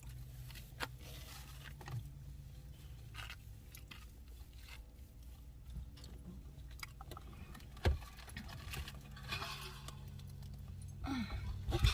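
Low steady hum of an idling car, with scattered small clicks and rustles of handling and one thump about eight seconds in.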